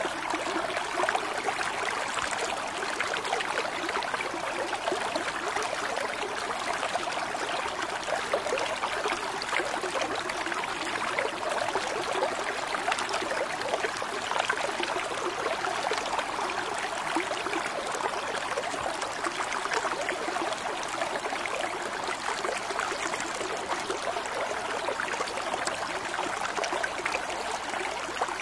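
Steady rushing noise like a running stream, even and unbroken throughout.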